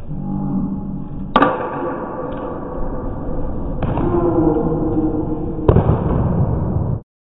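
Softball bat striking balls three times, about two seconds apart, each hit a sharp crack that rings on briefly, over a steady low background rumble. The sound cuts off suddenly near the end.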